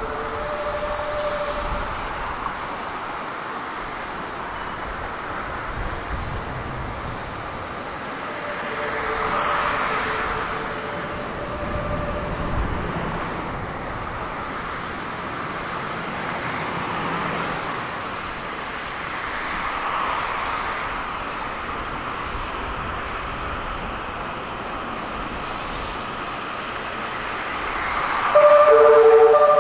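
E001 series Train Suite Shiki-shima running slowly out of the station: a steady rumble of wheels on rail that swells and fades as the cars pass over the points, with some wheel squeal. Near the end a loud electronic warning tone of several pitches sets in.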